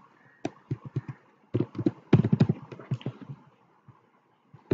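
Computer keyboard keys being typed: a few keystrokes about half a second in, then a quicker run of clicks from about a second and a half in.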